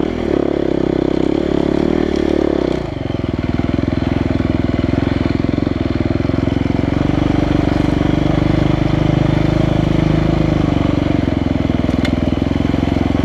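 Single-cylinder four-stroke engine of a 2015 Husqvarna FE350 dirt bike running while ridden along a trail. The engine pitch is held higher for the first few seconds, drops about three seconds in, and then stays steady at a lower pitch.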